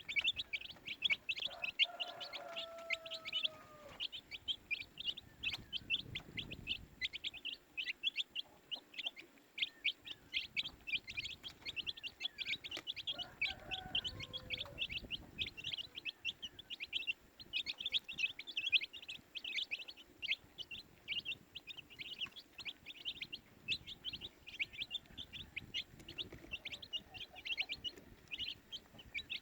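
A group of baby chicks peeping, with many short, high chirps overlapping several times a second. A lower, longer call comes in twice, about two seconds in and again near the middle.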